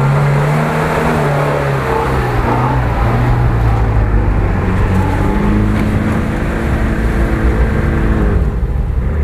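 UAZ-469 off-road vehicle's engine revving hard under load as it drives through mud. The pitch rises and falls, climbs again about halfway through, and drops off near the end.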